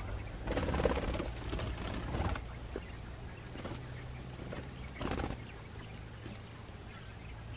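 Japanese quail moving about the aviary, rustling and scratching in the ground litter: a longer stretch of rustling in the first couple of seconds and a short burst about five seconds in, with a few light ticks between.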